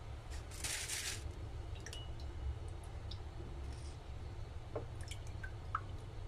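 Water splashing and dripping as a hand works soaked black fungus (wood ear) pieces in a bowl of water. There is a short splash about a second in, then scattered drips and small wet clicks, over a steady low hum.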